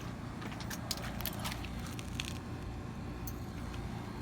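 A few faint, short clicks and rattles of small pieces of a smashed kitchen timer being handled, scattered through the first three seconds or so, over a steady low background hum.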